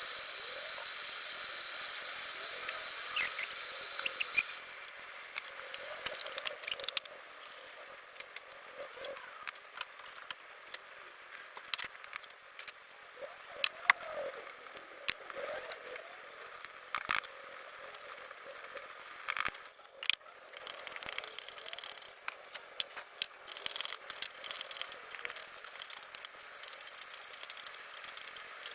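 Kitchen food-preparation sounds: many scattered sharp clicks and taps with short squeaks and squishy handling noise. A steady high hiss runs for the first few seconds, then drops away.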